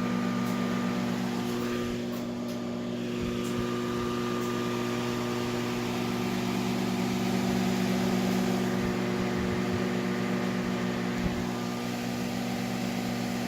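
Steady electrical hum with a few fixed tones, the sound of a plugged-in appliance, with a few faint clicks.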